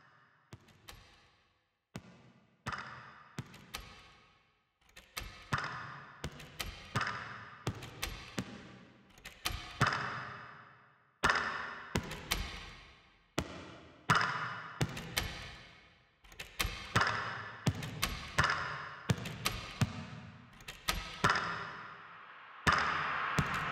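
Electronic music built from sharp clicks and short percussive hits that each fade away, sparse at first and growing denser and louder. A steady noisy wash comes in about a second before the end.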